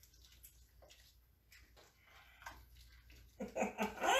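A spoon stirring shrimp in gravy in a pot, with faint scrapes, taps and liquid sloshing. Near the end a short vocal sound, like humming, comes in louder.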